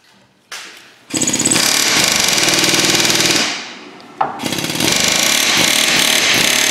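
Air hammer chattering against a rusted wheel-bearing snap ring, metal on metal, in two long bursts of about two and three seconds with a short pause and a click between. It is being run gently to work the seized snap ring loose.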